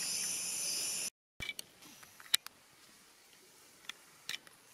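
Night insects trilling in a steady high chorus that cuts off suddenly about a second in. After that it is near quiet, with a few faint sharp clicks.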